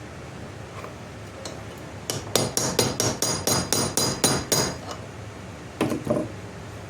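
Hammer tapping steadily on a metal pin, about four quick ringing strikes a second for a couple of seconds, then two duller knocks: peening over a handle pin to rivet a knife's handle scales to the blade.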